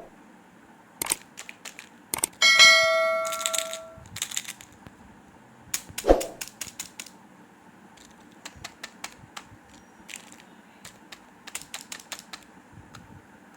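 Candy packaging being handled and opened: scattered sharp clicks, taps and crackles. A single bell-like ding about two and a half seconds in rings out for about a second and a half, and a dull knock follows a few seconds later.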